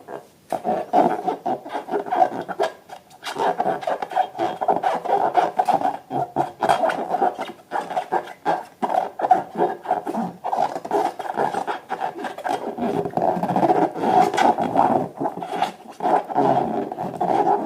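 Rubber balloons being rubbed and squeezed in the hands, a continuous squeaky, growl-like rubbing with many small clicks and brief pauses.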